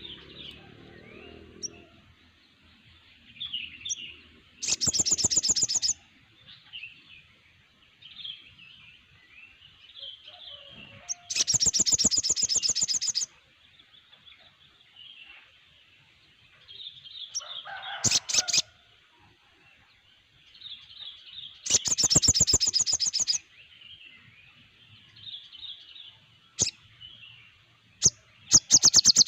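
A group of sogon songbirds calling together: soft, continuous twittering, broken four times by a loud, buzzy rattling call lasting one to two seconds.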